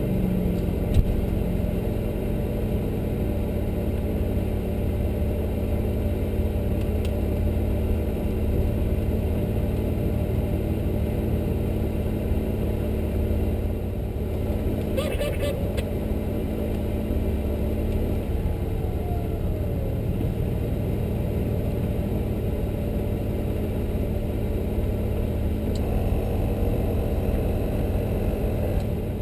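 A vehicle engine running steadily at idle, with a short cluster of clicks about fifteen seconds in.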